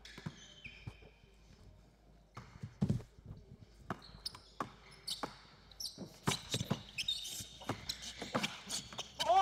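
Basketball bouncing on a hardwood gym floor as it is dribbled. The bounces are sparse at first, then come quicker and louder from about two and a half seconds in, with short high squeaks of sneakers on the floor.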